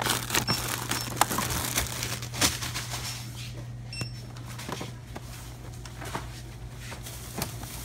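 Rustling, crinkling and knocking from a phone and shopping bags being handled on the move, over a steady low electrical hum, with a few short high electronic beeps near the start and about four seconds in.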